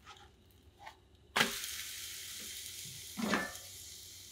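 A thin milk crepe flipped in a hot frying pan: about a second and a half in, a sudden sizzle starts as the raw side meets the hot pan and carries on steadily, fading slowly. A soft knock comes about three seconds in.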